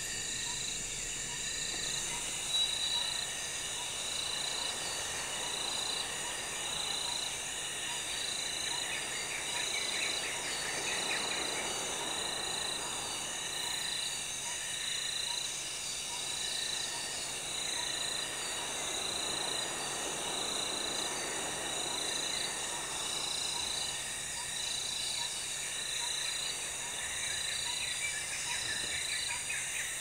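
Tropical rainforest insect chorus: several steady high-pitched trills layered together, one of them pulsing about once a second, with faint repeating ticks beneath. A soft rushing sound swells and fades twice underneath the chorus.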